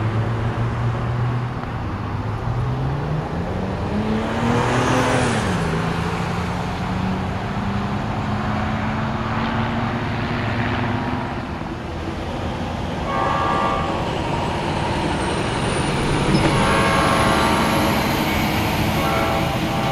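Road traffic, with an engine rising in pitch as it speeds up and then dropping back, as a gear change would. In the second half, an approaching locomotive sounds its multi-note horn in several blasts.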